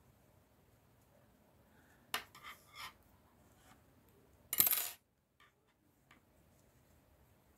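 Metal double-pointed knitting needles clicking against each other: a few light clicks about two seconds in, then a louder clink of the needles at about four and a half seconds.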